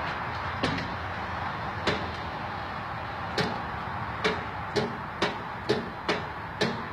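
A string of sharp knocks or clicks, irregular, about one every half second to a second and coming more often in the second half, over a steady background hiss.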